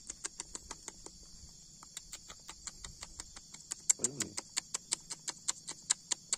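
Leopard cat kitten suckling formula from a syringe tip, making rapid wet clicks about five a second, over a steady high hiss of insects. A short vocal sound, falling in pitch, comes about four seconds in.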